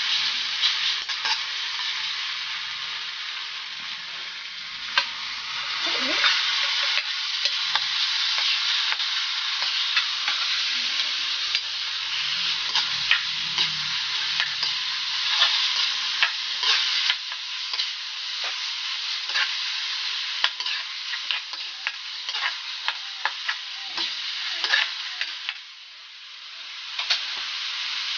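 Pork cubes, tomatoes and peppers sizzling in oil in a nonstick wok, with the spatula scraping and clicking against the pan as the food is stirred. The sizzle drops briefly near the end.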